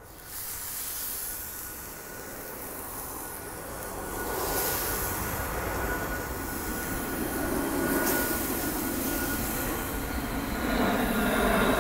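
Seasoned chicken breasts sizzling in hot oil on a Blackstone propane griddle's flat steel top. The sizzle starts just after the beginning and grows louder in steps, about four seconds in and again near the end, as more breasts are laid down.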